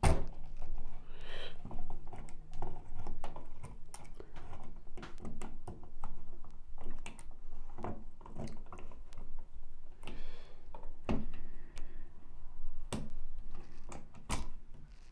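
Irregular clicks, knocks and scraping from a three-way light switch and its bunched wires being pushed into the wall's electrical box.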